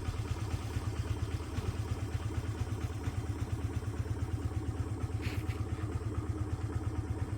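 An engine running steadily with a fast, even throb, typical of construction machinery.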